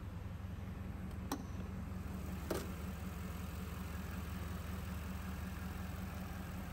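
Mercedes-AMG GT S 4.0-litre twin-turbo V8 idling steadily, with two short sharp clicks a little over a second apart early on.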